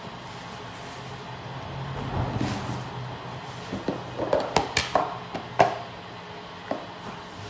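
Packing a lunch by hand: a plastic bag rustles, then a quick run of sharp clicks and knocks as items and the lid go into a plastic lunch box.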